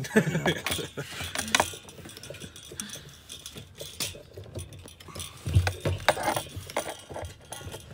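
Irregular clicks, knocks and light rattles of hard plastic and metal fuel-pump parts being handled and fitted through the fuel tank opening, as the pump's top hat is worked back into place.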